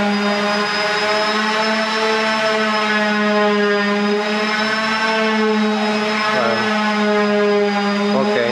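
A woodworking power tool's electric motor running steadily, a constant, unchanging whine.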